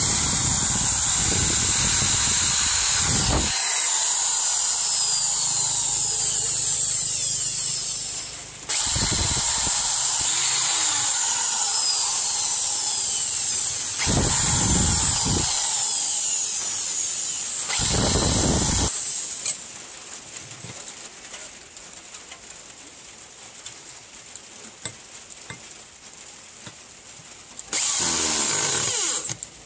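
Electric hand drill running at speed and boring through hardwood handle scales, a steady high whine with short rougher patches as the bit cuts. It stops for a moment around eight seconds, runs again until nearly twenty seconds, goes quiet with only a few faint ticks, and starts up again near the end.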